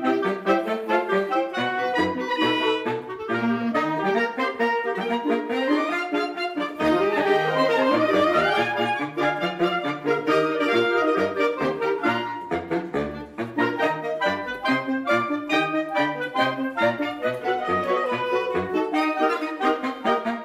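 Clarinet and saxophone ensemble playing a lively piece in several parts, with a quick upward run of notes about seven seconds in.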